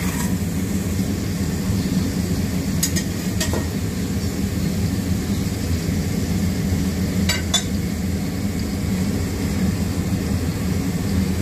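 A steady low rumble of background noise, with two pairs of light clinks of dishware about three and seven and a half seconds in.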